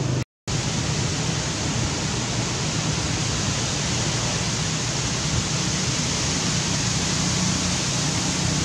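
Steady, even rushing hiss of wind on the microphone, with a very short dropout to silence just after the start.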